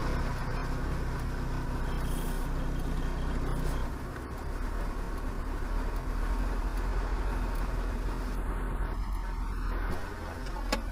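Engine idling and traffic noise picked up by a dashcam microphone inside a stopped car: a steady low hum under an even rush of noise.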